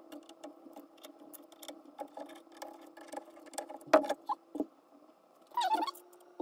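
Small metallic clicks and taps of a riflescope in its mount being handled and taken off a rifle's rail, with one sharp knock about four seconds in and a smaller one just after.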